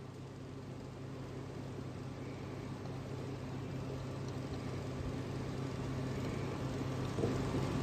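Steady low machine hum that slowly grows louder, with no other distinct events.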